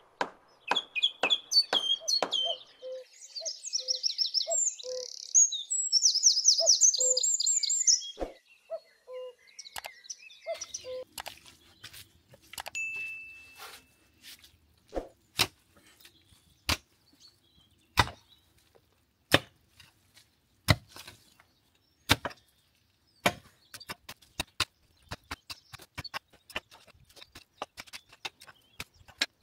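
Birds singing with high chirps over the first several seconds. Then a steady series of sharp strikes, about one every second or so, from a hand tool digging into stony ground.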